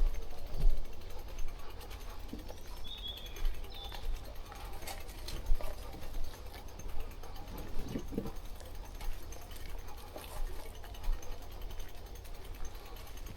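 Bicycle on the move: irregular mechanical clicking and rattling over a steady low rumble, with two short high chirps about three and four seconds in.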